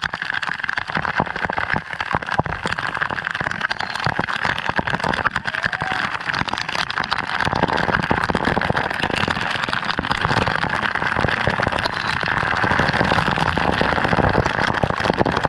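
Waterfall water pouring and splashing close by: a loud, steady rush thick with small crackling splashes.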